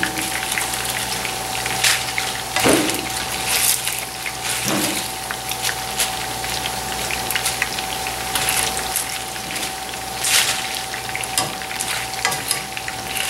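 Corn tortilla chips sizzling in hot frying oil, with scattered clinks of a metal slotted spoon and mesh skimmer against the pan as chips are lifted out. A steady faint hum runs underneath.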